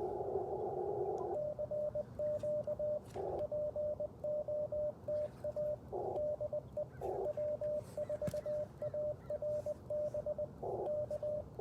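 Morse code sidetone from an Icom IC-705 as the operator sends on paddles: a single steady mid-pitched tone keyed on and off in dots and dashes. The receiver's filtered band hiss is heard at the start, cuts out while sending, and comes back briefly in the gaps between words (semi break-in).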